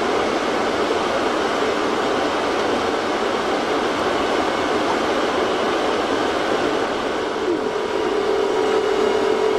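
Ampex AVR-1 two-inch quadruplex videotape machine running with a steady whooshing rush of machine noise. A steady hum comes in near the end.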